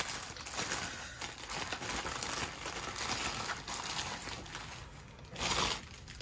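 Plastic courier mailer bag crinkling and tearing as it is pulled open by hand, with the white wrapping of the contents rustling as it is pulled out; a louder rustle about five and a half seconds in.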